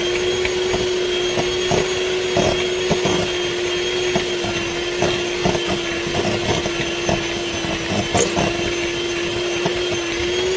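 Electric hand mixer running at one steady speed, beating an egg into thick choux pastry dough. It makes a steady hum with many short knocks and rattles scattered through it.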